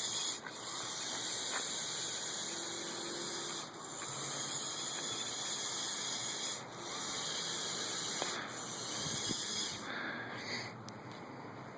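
Small electric drive motors of a tracked remote-control robot running with a high, hissing whine, stopping and restarting about four times as it is steered.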